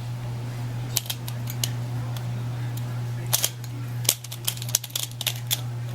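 YKL Pyraminx pyramid puzzle being turned quickly by hand. It gives irregular sharp plastic clicks, some in quick clusters, as each twist locks into position.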